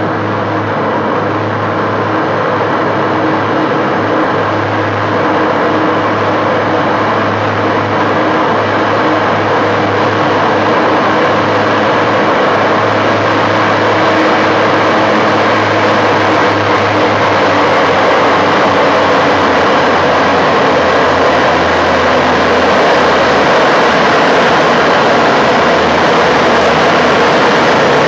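Engine of a Montréal metro MPM maintenance service vehicle running steadily as it approaches along the track, growing slowly louder. A low steady hum runs under it and drops slightly in pitch about two-thirds of the way through.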